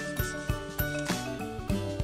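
Background music with a steady beat of about three clicks a second over held, bright pitched notes and a stepping bass line.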